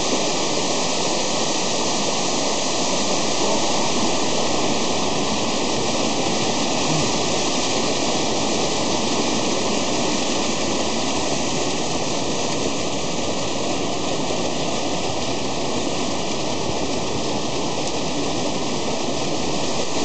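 A mountain stream rushing over boulders in small cascades of white water, a steady, unbroken rush.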